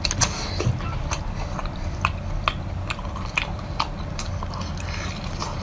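Close-miked wet biting and chewing of a whole braised octopus: irregular short smacks and clicks of lips, teeth and sticky sauce.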